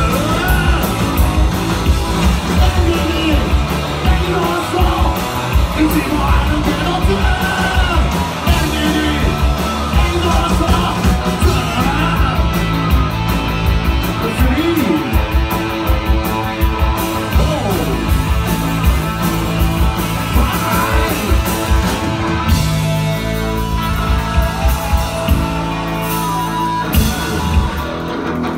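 Live rock band playing loud, with electric guitars, drums and a mix of singing and yelled vocals.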